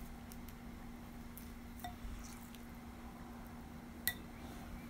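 Faint wet squishing of hands working henna paste into hair, with a few small clicks and one sharp clink about four seconds in, over a steady low hum.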